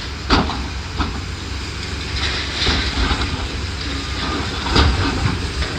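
Demolition machinery running with a steady low rumble and hiss, broken by several sharp knocks and clanks of building debris being pulled down.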